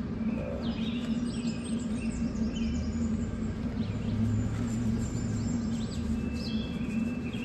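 Wild birds chirping in short, repeated, falling calls over a steady low hum.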